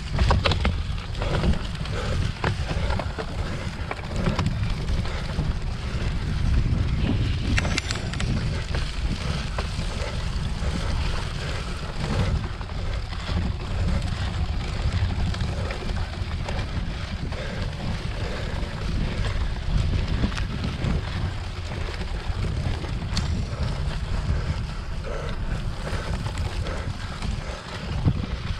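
Wind rushing over the microphone of a camera riding on a cyclocross bike, with scattered knocks and rattles as the bike is ridden over rough ground.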